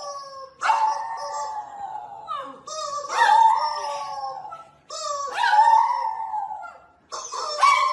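A small dog howling with its head raised: four long howls about two seconds apart, each starting sharply and sliding slightly down in pitch.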